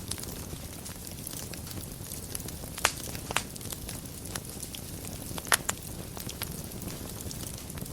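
Wood fire burning in a fireplace: a steady low rumble with soft crackling and a few sharp pops, the loudest about three and five and a half seconds in.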